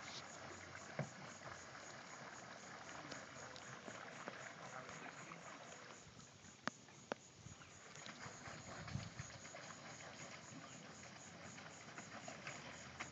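Faint splashing and churning of a pedal boat's paddle wheel in calm water, with two sharp clicks close together about seven seconds in.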